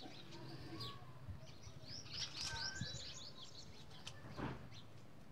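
Small birds chirping in quick runs of short high calls, busiest in the middle, over a low steady outdoor background, with a brief soft noise about four and a half seconds in.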